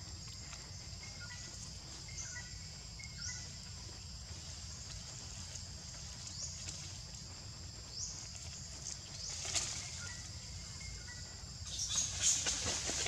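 Outdoor ambience: a steady high-pitched insect drone with short bird chirps and whistled notes scattered through it. Louder rustling and crackling near the end.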